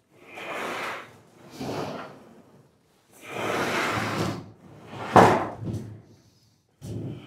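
Wuko 3352 hand roll bender's rollers running along the edge of a long strip of sheet-metal coil stock, pushed back and forth in rolling runs of about a second each with short pauses between, creasing a roof valley. A sharp metallic bang about five seconds in.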